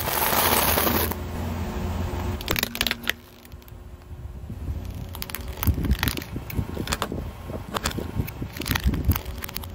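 Car tyre rolling over a heap of dry noodles: a loud crunch for about the first second, tailing off into scattered crackles and sharp snaps.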